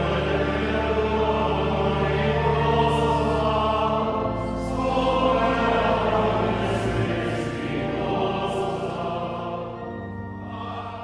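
A choir singing sacred music, several voices holding long notes over a low held bass, with the sung words' consonants coming through now and then. It grows softer near the end.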